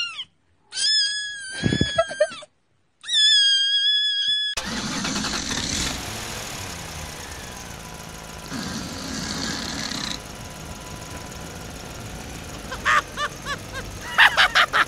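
Three drawn-out cat meows with short silences between them. About four and a half seconds in, a car engine sound cuts in and runs steadily to near the end, louder for a stretch in the middle.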